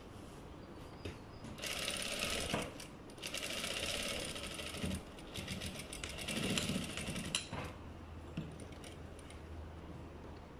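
Sewing machine stitching a patch pocket onto cotton fabric in two runs: a short run of about a second, then after a brief pause a longer run of about four seconds.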